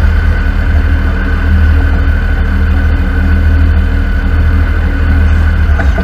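A heavy truck's diesel engine idling steadily: a low, even hum.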